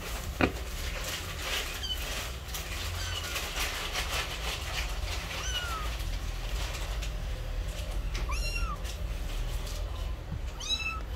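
A month-old ginger kitten mewing: a few faint, short, high mews, then two clearer high-pitched meows near the end, over light rustling and clicks.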